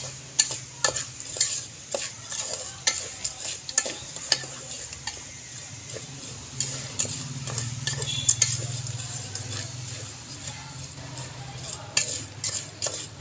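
Metal spoon stirring wet-coated popcorn kernels in an aluminium pot, scraping the pot with repeated clicks and scrapes and a rattle of kernels, over a low steady hum.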